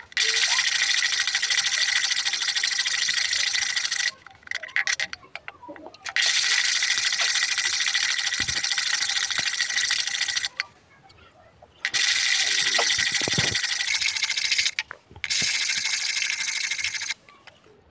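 Electric planer blade, clamped in a holder, being sharpened: rubbed back and forth on a diamond sharpening plate with a steady scraping hiss, in four bouts of a few seconds each with short pauses between them.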